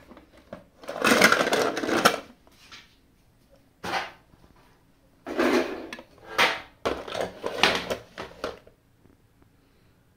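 A hand rummaging through a plastic tub of small diecast and plastic toy cars. The toys clatter and rattle against each other and the tub in several short, irregular bouts.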